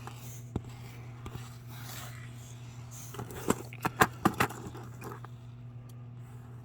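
Small clicks and scraping of model trailer sections being separated and handled, with a cluster of sharp clicks in the middle, over a steady low hum.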